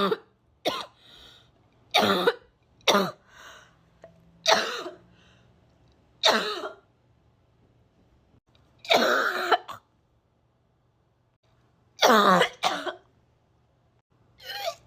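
A person coughing and gagging: about ten separate coughs a second or two apart, with a longer drawn-out one about nine seconds in.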